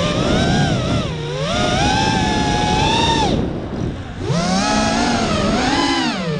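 Walkera F210 racing quadcopter's brushless motors and HQ props whining, the pitch rising and falling continuously with the throttle. About three and a half seconds in the throttle is chopped and the whine drops away and quiets briefly, then spools back up.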